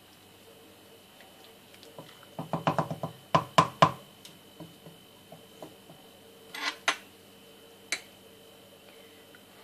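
Wooden spoon stirring thick lentil dal in a stainless steel pot, then knocking sharply on the pot three times about three and a half seconds in. Fainter knocks follow, and near the end a single light click as a metal spoon touches the pot.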